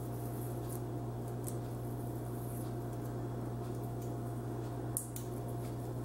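A steady low hum, with a few faint light clicks and rustles of small parts being handled, the clearest about five seconds in.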